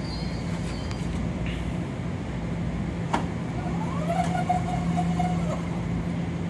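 Metro-North M7A electric commuter car standing at the platform with a steady low hum. About three seconds in there is a click, then a side door slides open with a rising whine that holds for about a second and a half and stops.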